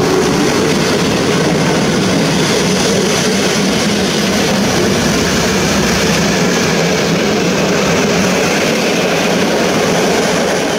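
PKP Intercity passenger coaches rolling past close by, a loud, steady rumble of wheels on the rails, with a faint held tone at the start.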